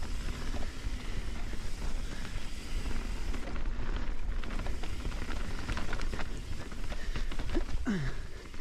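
Mountain bike descending a dirt singletrack at speed: wind rumble on the camera mic and tyres rolling over the trail, with the bike's chain and frame rattling in quick clicks. A brief falling squeak comes near the end.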